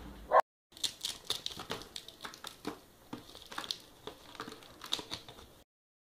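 A steady rushing noise cuts off with a short, loud blip. After a moment's gap come about five seconds of irregular crackling and crinkling clicks, then the sound stops suddenly.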